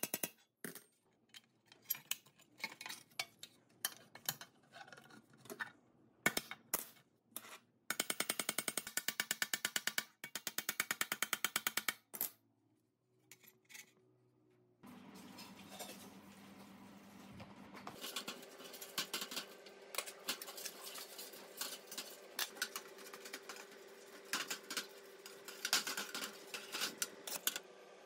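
Screwdriver ratcheting in quick runs of clicks while screws are turned in a sheet-metal stove burner plate, with scattered taps and clinks of the metal between runs. After a quiet pause, small metal parts click and tap over a faint steady hum.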